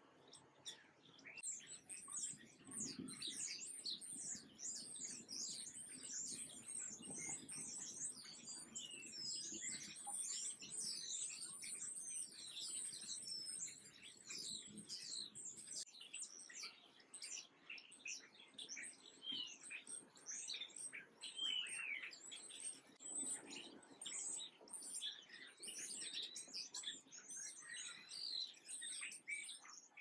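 Many small songbirds chirping and twittering at once: a dense stream of short, high, overlapping chirps that barely lets up.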